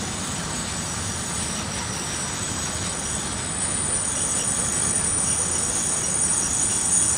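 Container freight train wagons rolling past: a steady rumble of wheels on rail with a thin, high wheel squeal over it. The squeal and the overall level grow louder in the second half.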